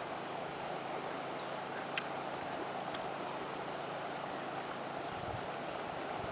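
Honeybee swarm buzzing as a steady hum, with a single sharp click about two seconds in.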